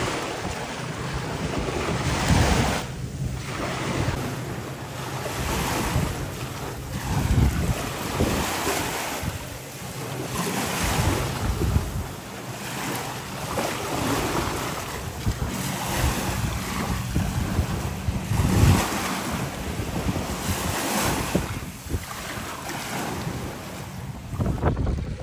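Small waves washing onto a sandy shore, swelling and fading every couple of seconds, with wind rumbling on the microphone.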